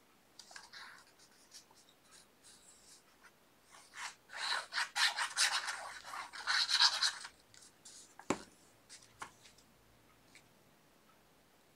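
Paper being handled and rubbed by hand: a burst of scratchy rubbing and rustling about four to seven seconds in, then a sharp click and a fainter one.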